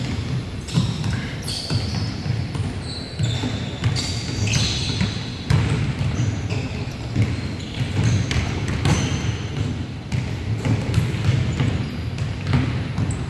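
Basketballs bouncing on a hardwood gym floor during a pickup game, in irregular dribbles, with short high squeaks of sneakers scattered throughout.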